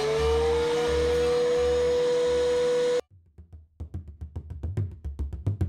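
Background music: a held note over a pulsing low beat cuts off suddenly about halfway through, then quick percussive taps start a new piece.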